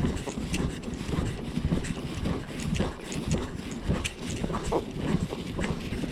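Hoofbeats of a Tennessee walking horse mare moving along a dirt trail, heard from the saddle as a steady run of thuds, with wind buffeting the microphone.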